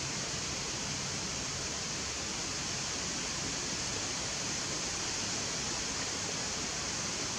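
Steady outdoor forest ambience: an even, unbroken hiss that is strongest in a high band, with no calls or knocks from the grooming monkeys.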